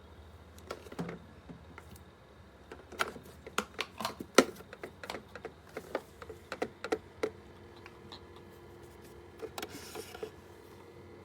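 A quick, irregular run of sharp clicks and taps, then from about seven seconds in a steady low hum.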